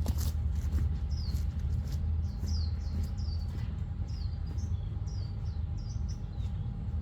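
A bird chirping over and over, short quick downward chirps every half second or so, over a steady low rumble.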